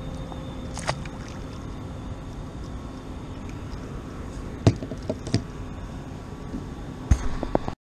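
Steady wind and water noise around a fishing kayak, with a few sharp knocks and clicks: one about a second in, a cluster near the middle and more near the end.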